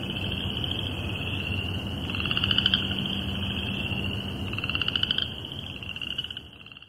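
A chorus of chorus frogs trilling steadily, with a nearer frog's louder trills standing out twice, about two seconds in and about five seconds in. The chorus fades out near the end.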